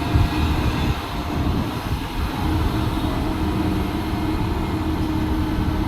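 Heavy construction machinery engine running steadily, with a constant low hum.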